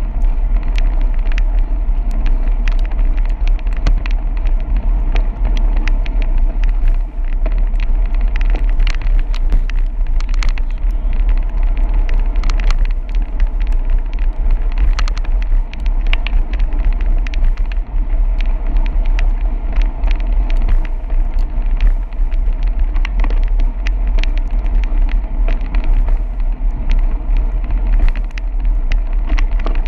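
Bicycle riding fast on a wet paved trail, heard through a handlebar-mounted camera: a steady, loud low rumble of wind and road vibration with tyre hiss, and frequent small ticks and crackles.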